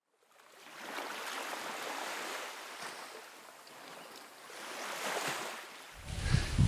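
Soft rushing sound of surf that swells and ebbs twice. About six seconds in it gives way to wind buffeting an outdoor microphone.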